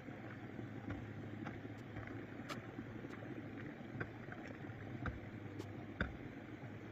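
Small walk-behind tractor engine running steadily, with scattered clicks and knocks at irregular moments.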